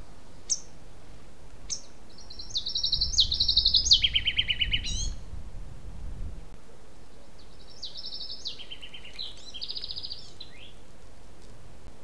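A songbird singing two phrases, about two seconds in and again near eight seconds. Each phrase is a string of fast trills that step between higher and lower pitches. Two short sharp high notes come before the first phrase, and a low rumble sits under it.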